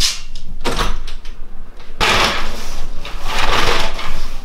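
Curtains being dragged along their rail, then a window being opened: bursts of rustling, sliding noise, thickening into a longer scrape about halfway through.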